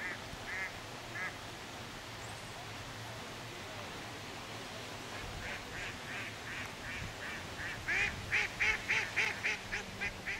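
Waterfowl calling in a quick series of short calls, about three a second: a few near the start, then a longer run from about halfway that grows louder towards the end.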